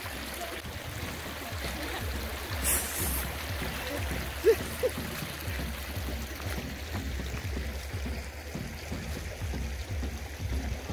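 Shallow stream water flowing over rock, heard as a steady rushing, over a low rumble of wind on the microphone. A brief sharp sound stands out about four and a half seconds in.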